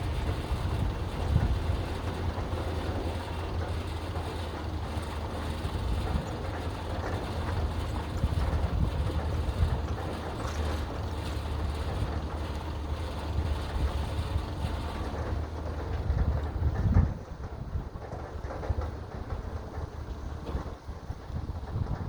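Excavator's diesel engine running steadily with a low hum and mechanical noise. About seventeen seconds in there is one loud knock, after which the machine sounds quieter.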